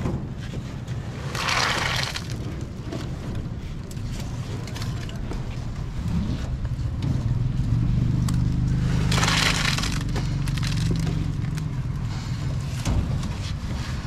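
Concrete mixer running with a steady low engine drone that grows louder in the middle. Two short, harsh, noisy bursts stand out over it, about a second in and about nine seconds in.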